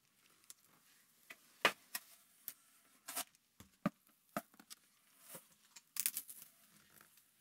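Cardboard speaker box being opened by hand: scattered clicks, taps and scrapes as the flaps and a cardboard sheet inside are moved, with a short run of rustling about six seconds in.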